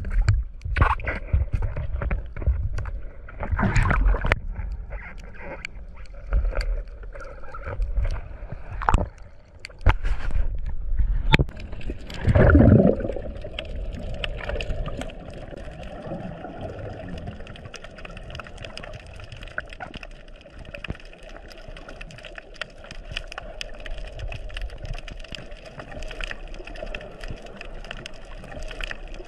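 Underwater sound picked up by a diver's camera: water movement and gurgling, with scattered knocks in the first half and a loud bubbling gurgle about twelve seconds in. After that it settles into a steadier water noise with a faint hum.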